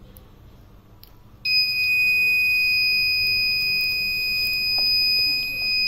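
The piezo buzzer of a gas-leak alarm circuit starts sounding about a second and a half in, as a 9-volt battery is snapped onto its clip, and holds one continuous high-pitched beep. Before it, faint clicks of the battery snap being handled.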